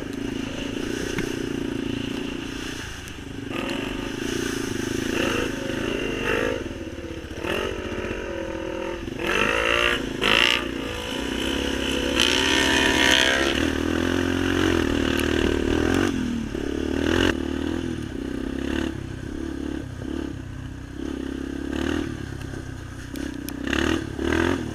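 Off-road vehicle engine running under riding load, its pitch rising and falling again and again as the throttle is worked, with scattered knocks and rattles.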